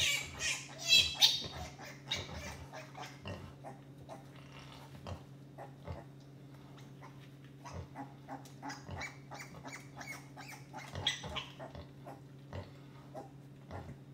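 Newborn piglets squealing and squeaking as they jostle at a nursing sow's teats, loudest in the first second or two and again near the end. Underneath, the sow gives short, low grunts about once a second, the steady grunting of a sow letting down milk, over a steady low hum.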